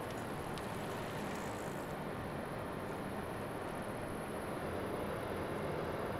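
Steady drone of a large container ship passing close by, a low engine hum mixed with even noise, growing slightly louder near the end.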